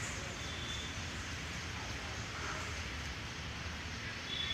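Steady outdoor trackside background: a low rumble under an even hiss, with a few faint, short high chirps.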